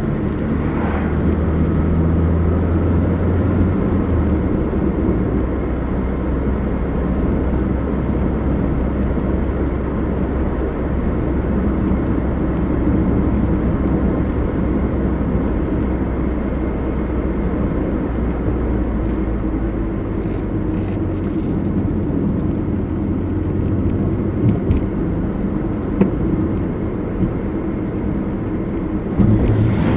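A car driving: a steady engine hum with tyre and road rumble. The engine's low note changes pitch a few seconds in, and a few light ticks or knocks come near the end.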